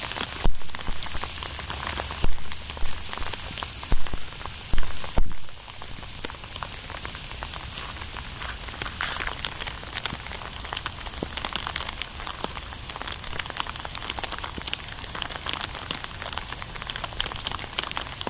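Hail falling and striking hard surfaces: a dense, steady clatter of many small hits. Several louder thumps come in the first five seconds or so.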